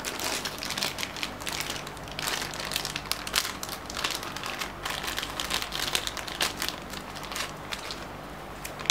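Clear plastic bag crinkling as hands open and handle it: irregular crackly rustles that ease off over the last couple of seconds.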